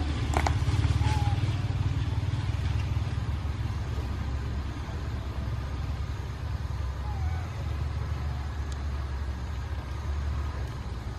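Steady low rumble of an engine running nearby, like an idling vehicle, with a few brief faint chirps over it.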